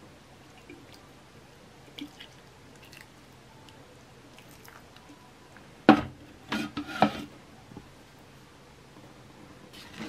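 A few light clicks, then about six seconds in a plastic watering can is set down on the table with a sharp knock, followed by a few more short knocks and rattles as it is handled.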